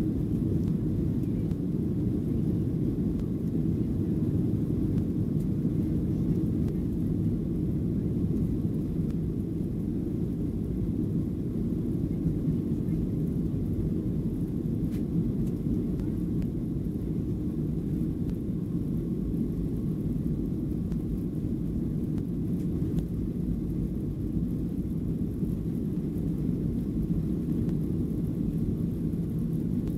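Steady low rumble inside the cabin of a Boeing 737-700 taxiing, from its CFM56-7B engines at low thrust and the rolling wheels, even in level throughout.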